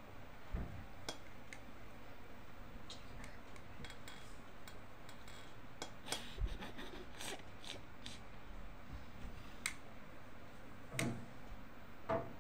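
Scattered light clicks and taps, as from handling makeup tools and the phone held close, over a faint steady room hiss.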